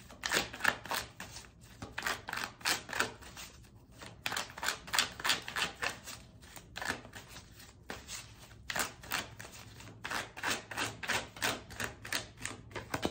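A tarot deck being shuffled by hand: quick runs of light card clicks and slaps, several a second, broken by short pauses.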